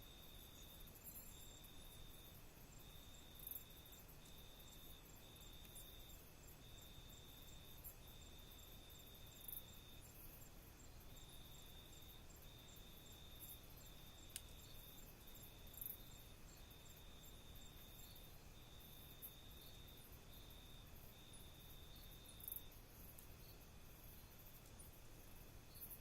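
Faint night insect song: a high, steady trill sung in runs of about half a second to two seconds with short breaks, stopping about three-quarters of the way through, over low background hiss. A faint fast ticking sits above it, with a few brief high clicks.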